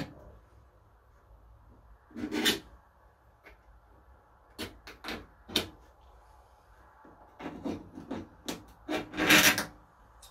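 Steel scriber scratching along the edge of a sheet-steel patch panel held against the car body, marking out the cut line. It comes in short separate scrapes: one about two seconds in, a few around the middle, and a quicker run near the end, the loudest there.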